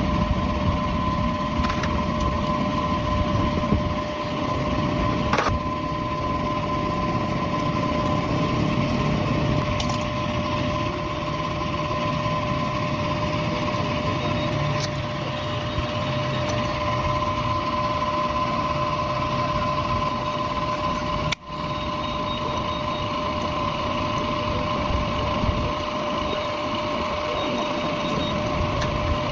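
A motor running steadily, with a low rumble and a constant high whine, broken by a brief cut about 21 seconds in.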